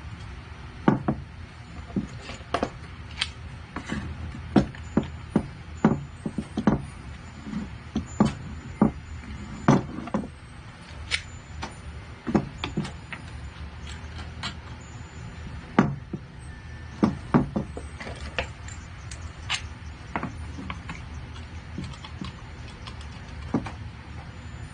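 Irregular sharp knocks and clacks of wooden discs and threaded steel rods being handled and set against the wooden instrument body and workbench while homemade clamps are fitted. A steady low hum runs underneath.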